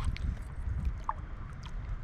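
Steady rush of river water, with wind buffeting the microphone as a low rumble and a few faint ticks over it.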